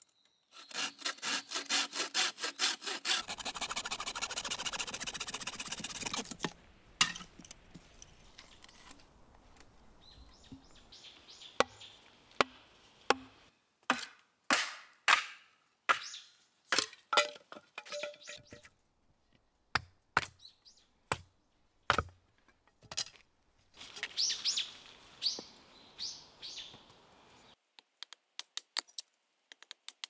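A saw blade in a handmade bow frame sawing through a bamboo pole in quick, even strokes for about six seconds. Then bamboo being split with a cleaver on a wooden chopping stump: scattered sharp cracks and knocks, with a short run of quick scraping strokes near the end.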